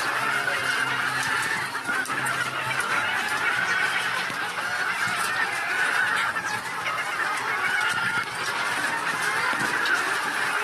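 A large flock of laying hens clucking and calling all at once, a dense, steady chorus of many overlapping birds.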